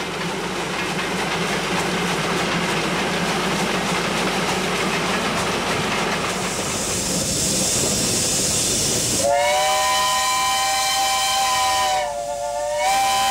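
Oil-fired Garratt articulated steam locomotive working a train with a steady rush of exhaust and steam hiss. About nine seconds in, a steam locomotive's chime whistle sounds a chord of several tones for about three seconds, breaks off briefly and sounds again, slightly higher, near the end.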